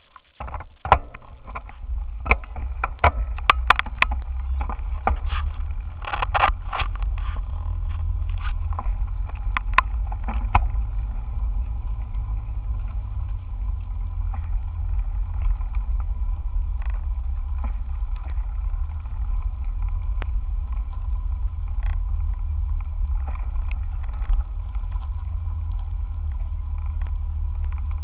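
Steady low rumble of a bicycle ride picked up by a camera mounted on the handlebars: wind and road vibration. Sharp clicks and rattles come thick over the first ten seconds or so, then thin out.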